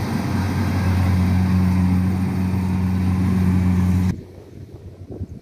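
Kubota DC-70 rice combine harvester running steadily at working speed while cutting rice, a low, even engine hum with machinery noise. It cuts off abruptly about four seconds in, leaving only a quiet background with a few faint clicks.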